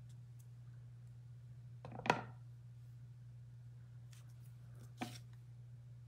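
Two short, sharp taps of a clear acrylic stamp block pressed down onto card stock on a wooden desk, about two seconds in and again about three seconds later, the first the louder, over a low steady hum.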